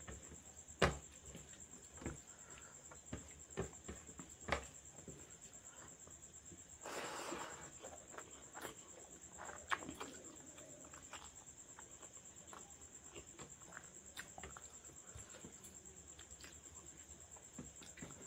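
A person eating rice by hand: wet mouth clicks, lip smacks and chewing, with a few sharp smacks in the first five seconds and a brief rustle about seven seconds in.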